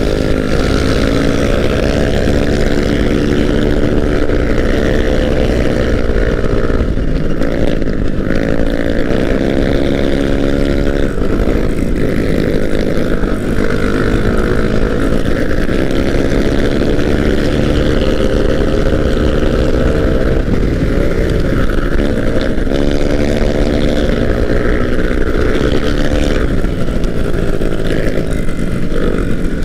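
Honda Vario scooter engine running at speed, its note rising and falling again and again as the throttle is opened and eased, with rushing air over the microphone.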